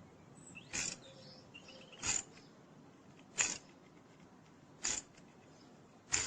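Hand tap cutting a new thread in soft aluminium for a Helicoil, turned with a tap wrench in short strokes: five brief scrapes, one about every 1.3 seconds.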